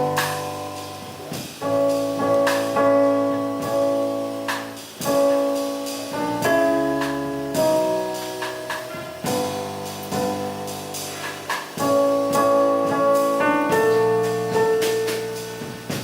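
Jazz piano trio playing: piano chords struck one after another and left to ring, with cymbal strokes over them.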